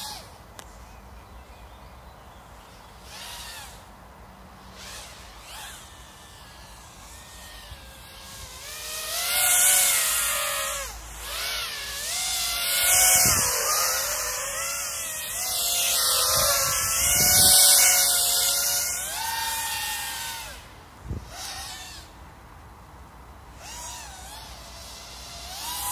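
FPV racing quadcopter's electric motors whining, the pitch sliding up and down as the throttle changes and the quad swoops past. It is faint at first, grows loud several times in the middle as it passes close, then fades again. A few low thumps are heard around the middle.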